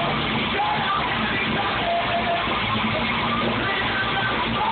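Rock band playing live, electric guitars and drums in a dense, steady wall of sound, recorded from the audience.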